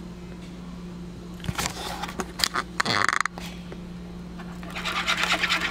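Wire whisk beating egg yolks in a plastic bowl: rapid, rhythmic clicking strokes that start near the end, after a few scattered knocks and a short scrape of handling. A steady low hum sits underneath.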